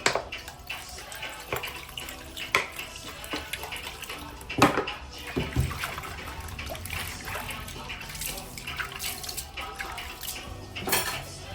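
Water running and splashing, with scattered knocks and clatters; the loudest knock comes a little under halfway through.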